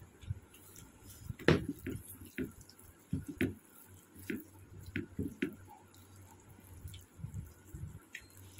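Wet, squishy eating sounds of rice and egg curry mixed and eaten by hand, in irregular soft smacks and clicks, the loudest about a second and a half in.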